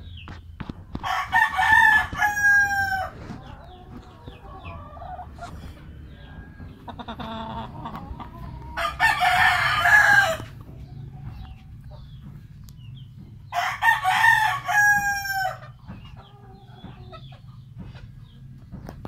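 Roosters crowing: three loud crows of about two seconds each, with softer clucking in between.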